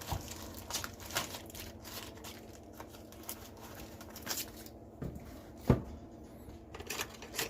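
Small tools being handled and set into a machinist's tool box: scattered light clicks and rustling, with one sharp knock a little before the end.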